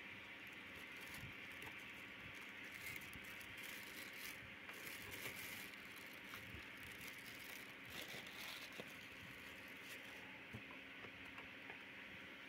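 Faint rustling and crinkling of a parts box and the plastic bag round a new solenoid valve being handled, with scattered small clicks, over a steady background hiss.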